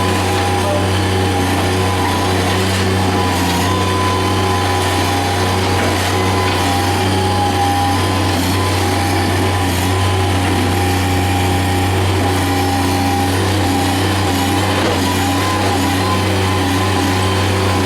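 A machine's engine running steadily at constant speed, with a strong low hum and no change in pitch or level.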